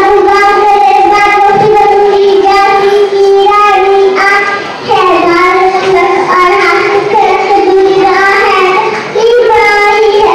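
A young girl singing into a microphone in long, held notes, with short breaks between phrases.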